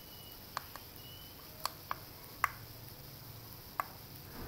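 Small push buttons on an MX-17 Bluetooth alarm clock clicking as the alarm hour is stepped up: about six light, sharp clicks at uneven intervals.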